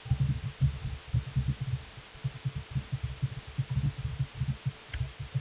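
Computer keyboard being mashed rapidly, picked up as dense, irregular clusters of muffled low thuds, over a faint steady hum.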